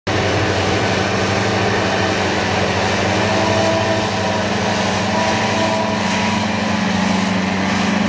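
Tractor pulling a Claas triple disc mower set (a front mower and two side mowers) through grass: the engine and mower drive running steadily under load, a continuous low hum with a faint higher whine over it.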